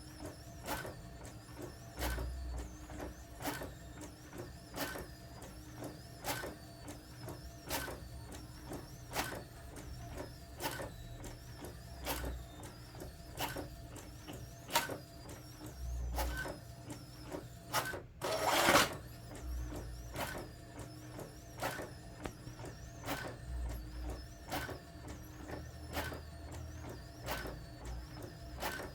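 Brother DCP-T700W inkjet printer printing: a steady low mechanical hum with a regular clicking of the print mechanism and occasional low thumps. About two-thirds of the way through comes a short, louder rushing burst.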